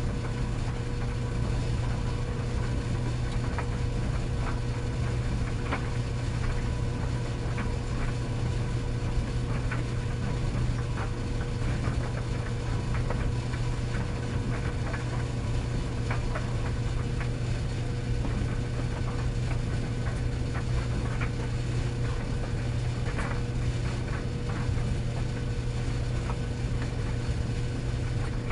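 Tumble dryer running: a steady motor and drum hum with a constant low drone and a faint steady tone above it, and irregular light clicks and ticks as the load tumbles in the drum.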